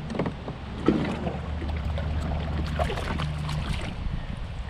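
Spinning reel being wound in against a hooked largemouth bass, with the fish splashing at the water's surface beside the kayak.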